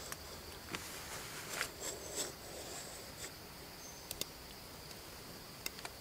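A knife blade scraping and ticking against the rind of a large green gourd as it is scored: a handful of short, scattered scratches and clicks over a steady high-pitched background drone.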